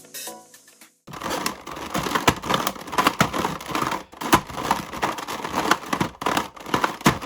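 Giant plastic Rubik's cube being turned by hand: a dense, irregular clatter of layers clacking and pieces rattling as they slide, starting about a second in. The turns sometimes stop barely misaligned and have to be pushed back into place.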